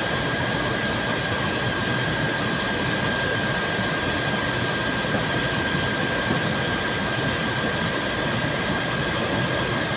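An air-conditioning system running steadily: an even noise with a constant high whine.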